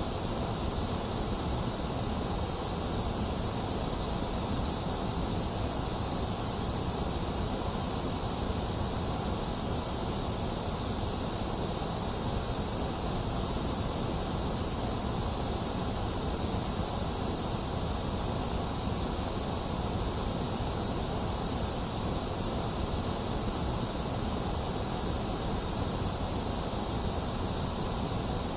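Box fan running together with steady rain: an even, unchanging rush of noise.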